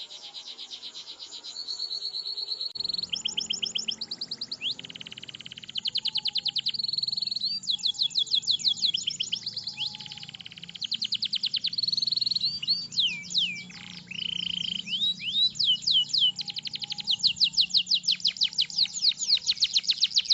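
Domestic canary singing a long rolling song: rapid trills of repeated notes that switch to a new trill every second or two, growing louder with fast sweeping notes near the end.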